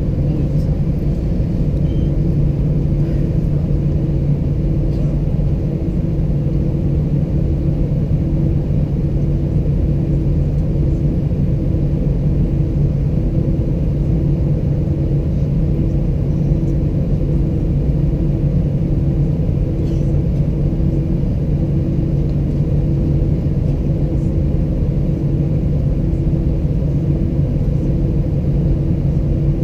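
Steady cabin noise inside an Airbus A320-211, its CFM56 engines running at a constant, low setting, with a deep hum and a higher tone that pulses about once a second.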